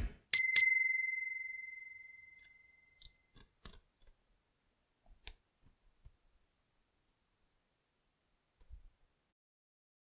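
A bell-like notification ding sound effect rings out once and fades away over about two seconds. A few faint, short clicks and light taps follow.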